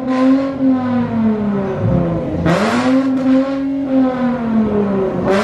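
Jaguar F-Type coupe's engine being revved while the car stands still: each rev climbs, holds high for a second or so, then drops back. One rev falls away about two seconds in, a second rev rises and falls, and a third starts at the very end.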